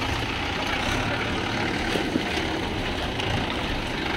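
Tractor diesel engine running steadily at low revs.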